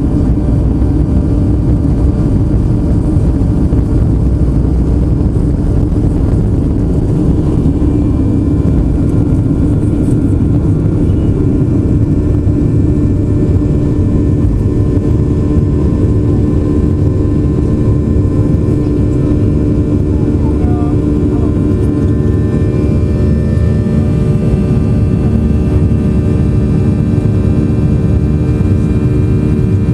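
Boeing 737-800's CFM56-7B jet engines running with a loud, steady low rumble and a hum. About halfway through, further steady higher tones join in.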